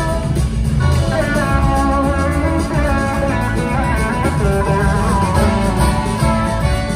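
A large live rock band with drums, bass, keyboards, horns and guitars playing an instrumental passage, with an electric guitar carrying melodic lead lines, heard from the audience.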